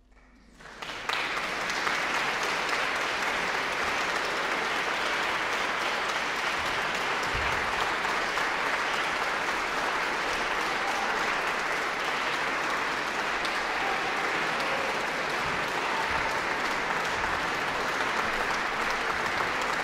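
Audience applause at the end of a piece: the clapping breaks out about a second in, swells quickly and then holds steady.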